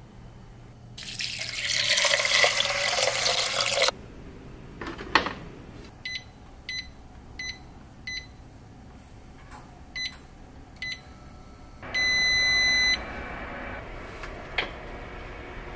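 Water poured from a measuring cup into a cast-iron pot for about three seconds, then a knock. Then the touch panel of a Vermicular rice pot beeps six times as its buttons are pressed, followed near the end by one longer beep.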